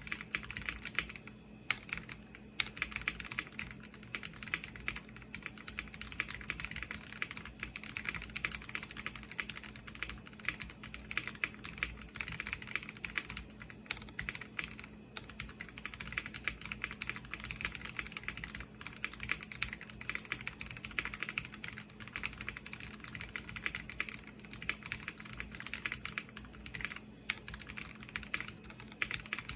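Continuous fast typing on a Space65 R3 custom mechanical keyboard with an aluminium plate and no foam, its lubed and filmed Cherry Hyperglide black linear switches under GMK keycaps clacking in a dense, unbroken stream of keystrokes.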